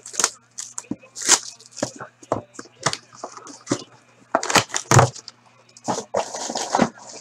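Shrink-wrapped cardboard trading-card boxes being picked up, handled and set down on a tabletop: irregular crinkling of the plastic wrap and light knocks of the boxes.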